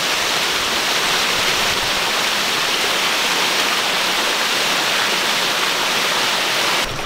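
Shallow rocky stream tumbling over stones and small cascades close by: a steady, even rush of running water that stops abruptly just before the end.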